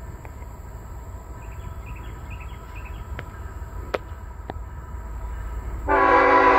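A low rumble grows slowly louder, with a few faint bird chirps, and then a diesel locomotive's air horn starts suddenly near the end as a loud, steady chord of several tones. The horn is blown by the lead Tier 4 locomotive of an approaching freight train.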